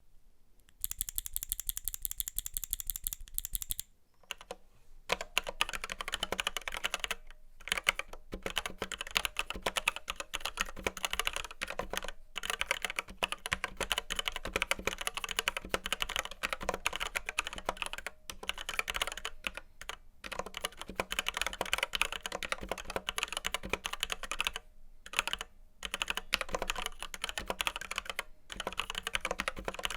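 Typing on a Red Square Keyrox Classic TKL v2 mechanical keyboard with linear Gateron Red switches and PBT doubleshot keycaps. It opens with a fast, even run of clicks for about three seconds, then steady typing with a few short pauses.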